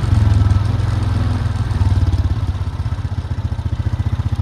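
Engine of a farm vehicle running steadily at low speed, with an even low pulsing beat.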